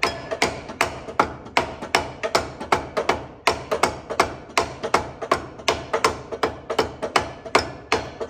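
Lead hammer tapping a heated crankshaft pulley onto an engine's crankshaft: rapid, even blows about three to four a second, each with a short metallic ring, with a brief pause about three seconds in.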